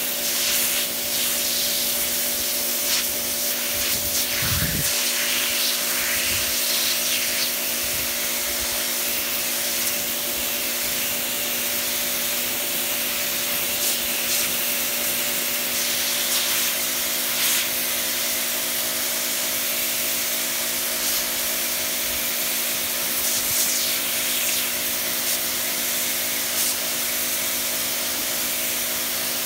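Kärcher 395 pressure washer running steadily: the motor and pump hum under the hiss of the high-pressure water jet spraying onto stone patio slabs.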